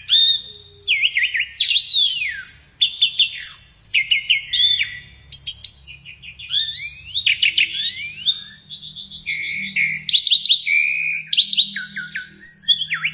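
Asian pied starling (jalak suren) singing a long, varied run of whistles, sweeping up-and-down notes and quick trills, with only brief pauses.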